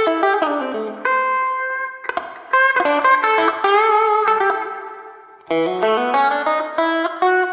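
PRS Silver Sky SE electric guitar, with its single-coil pickups, played through an amp in a slightly driven tone: blues licks of picked notes and string bends. One phrase trails off before the middle and a new one starts just after.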